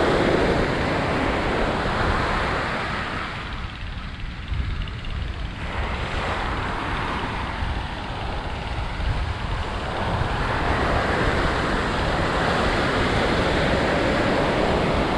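Ocean surf breaking on the beach, the wash swelling and fading, with wind rumbling on the microphone. It dips quieter a few seconds in and builds again near the end.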